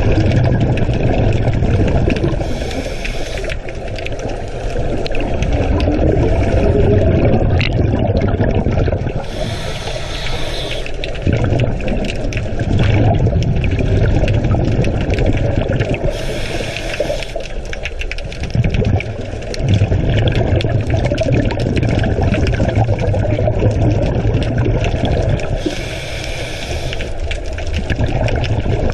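Steady low rushing of sea water, with a short hissing burst four times, several seconds apart.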